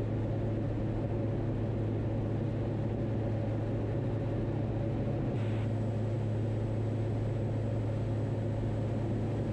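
Diamond DA62's twin turbo-diesel engines and propellers droning steadily in cruise, heard inside the cockpit. A faint hiss stops about halfway through.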